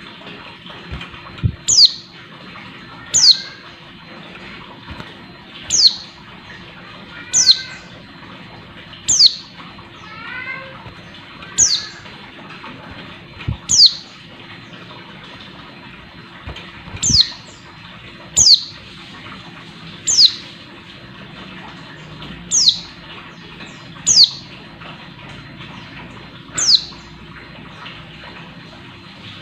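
Female white-eye (pleci) giving short, high, down-slurred call notes about every two seconds, with a few soft twittering notes between them and now and then a flutter of wings. It is a female calling to males, used to stir a male white-eye into song.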